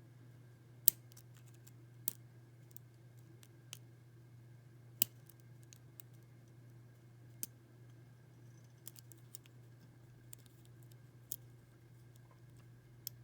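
Irregular sharp metallic clicks, about ten of them spread unevenly, as a lock pick works the pins of a First Watch six-pin padlock held in a false set while hunting for a spool pin. A low steady hum runs underneath.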